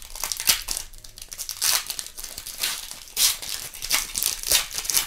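Foil wrapper of an O-Pee-Chee Platinum hockey card pack crinkling and tearing as it is ripped open by hand, in about six sharp crackles spread across a few seconds.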